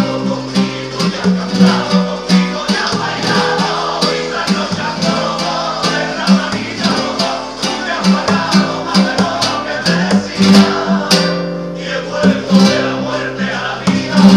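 Classical guitar strummed in a steady rhythm, playing pasodoble chords.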